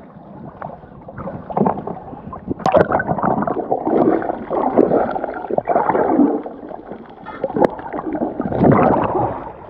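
Muffled underwater gurgling and sloshing of water in irregular surges, with a couple of sharp clicks.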